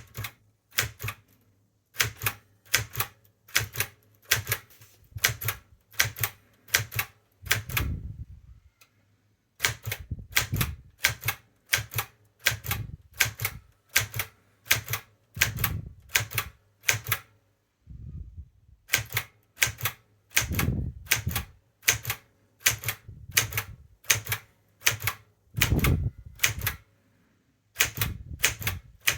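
Montgomery Ward Signature 510D typewriter being typed on: typebars striking one key at a time, about two strikes a second, with a few heavier thuds among them and a couple of short pauses.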